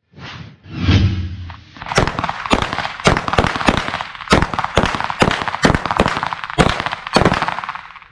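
A string of more than a dozen gunshots from submachine guns fired as rapid single shots, roughly two to three a second, with sharp cracks. Before them, about a second in, a rushing sound and a low thud.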